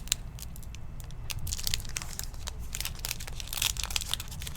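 Trading-card pack wrappers crinkling and cards being handled, with many light clicks and snaps and a couple of longer crinkly rustles.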